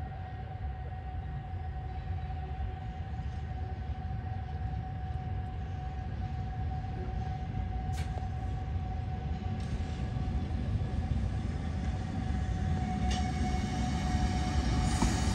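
Historic SBB electric locomotive running, a low rumble with a steady hum, growing louder toward the end. Two sharp clicks come along the way.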